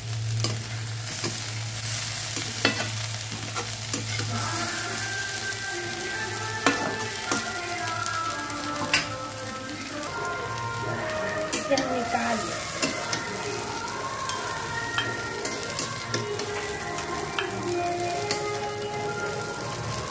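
Okra and potato stir-fry sizzling in a metal kadhai while a flat spatula stirs and scrapes it around the pan, with scattered sharp clicks of the spatula against the metal.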